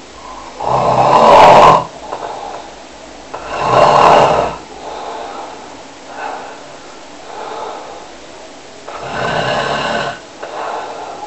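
A person snoring: three loud snores, about a second in, near four seconds and near nine seconds, with fainter breathing sounds in between.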